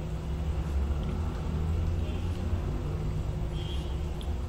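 A steady low rumble of background noise, with a faint brief high tone about three and a half seconds in.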